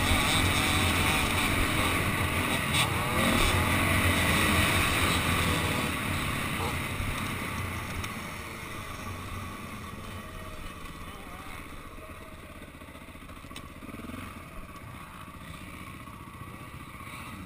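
Dirt bike engine running on a motocross track, heard through an on-board action camera together with wind rushing over the camera. It is loudest for the first six seconds, then eases off and grows quieter.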